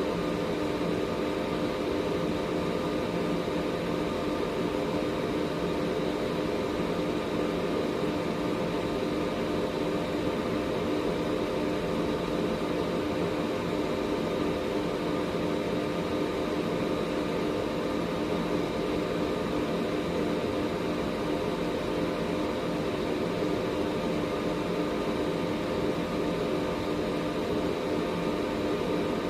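Air purifier running steadily: an even rush of air from its fan with a constant motor hum carrying several steady tones.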